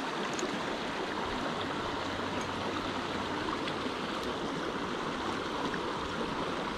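Shallow rocky creek running steadily over riffles, an even rush of water.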